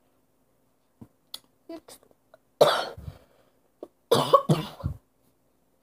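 A girl coughing: a few faint mouth clicks, then one loud cough about two and a half seconds in, followed a second later by a quick run of three coughs.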